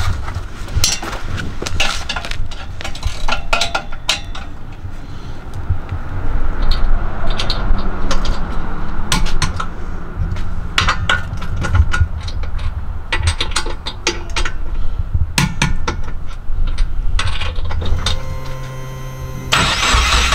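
The turbocharged flat-four engine of a 2013 Subaru WRX running through a freshly fitted Invidia N1 single-exit exhaust, a steady low rumble that grows louder about six seconds in, with irregular sharp clicks over it.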